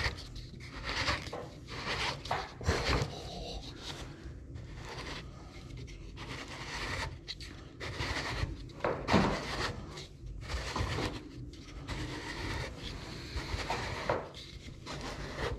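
Plastic pop-up desk socket being screwed by hand into its threaded collar in a wooden table top: irregular rubbing and scraping of plastic on the thread and against the wood, in short repeated strokes.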